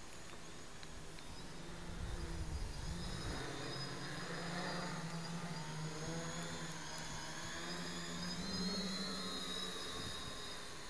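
Quadcopter with brushless motors and 10x4 wooden propellers flying: a steady propeller hum with a thin high whine that comes in about two seconds in, rises a little in pitch near the end, then fades.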